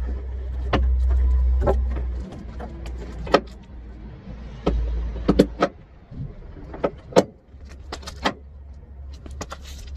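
Irregular sharp metallic clanks and rattles from handling gear under a flatbed trailer, about a dozen knocks at uneven intervals. A low steady rumble runs underneath, loudest in the first two seconds.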